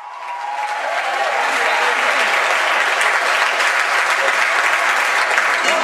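Audience applauding, the clapping swelling up over the first second and then holding steady, with voices under it.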